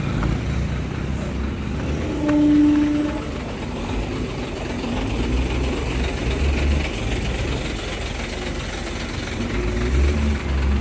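Motor vehicle engines and road noise running steadily, with low engine rumble swelling twice. One short horn honk sounds about two seconds in and is the loudest thing heard.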